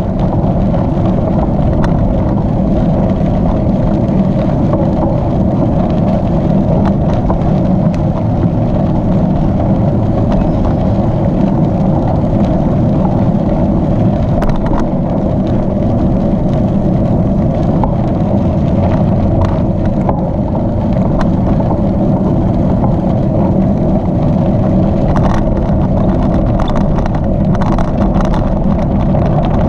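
Steady rolling rumble of a gravel bike's tyres on a gravel trail, with wind noise on the microphone and a few faint ticks scattered through.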